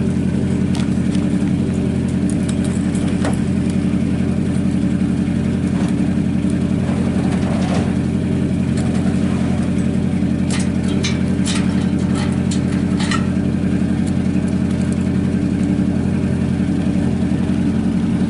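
Pickup truck engine idling steadily. A cluster of sharp clicks comes about ten to thirteen seconds in.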